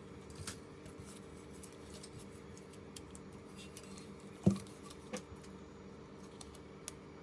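Small clicks and taps of tools and parts being handled on a workbench, with one louder sharp tap about four and a half seconds in and a second smaller one soon after, over a steady low hum.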